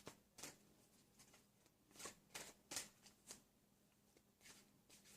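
Large oracle cards being shuffled by hand: a scattering of faint, short flicks and rustles of card stock, several seconds apart and in no steady rhythm.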